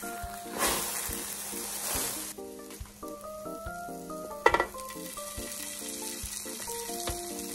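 Egg-soaked bread sizzling in a hot oiled pan, frying as French toast. The hiss is loudest for the first two seconds or so, then settles to a steady, softer sizzle. There is a single sharp tap about four and a half seconds in.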